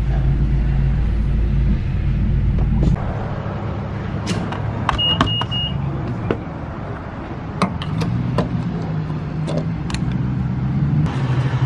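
A car engine idles steadily, with a deep rumble that drops away about three seconds in. From about four seconds on come scattered sharp clicks and knocks, and about five seconds in there are three short, high beeps.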